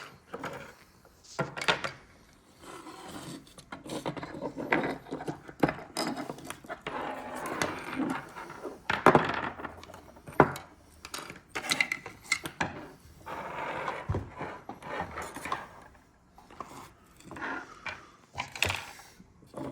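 Hard plastic and metal parts of a disassembled leak detector being handled and pried apart: irregular clicks, knocks and scrapes.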